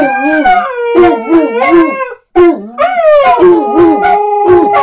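Several pet dogs howling together. One holds long, steady howls while another bays in short repeated calls, about three a second, with a brief break a little over two seconds in.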